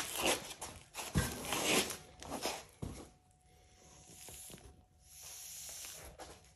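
Scraping and a few sharp knocks of metal parts being handled as a motorcycle's rear brake caliper bracket is slid out, then a faint hiss in the second half.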